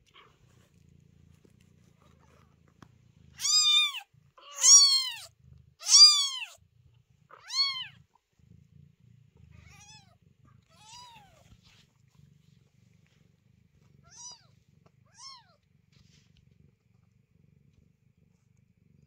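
Newborn kitten crying: four loud, high mews, each rising and falling in pitch, close together a few seconds in, then four fainter ones spread out later. A mother cat's low purr runs underneath.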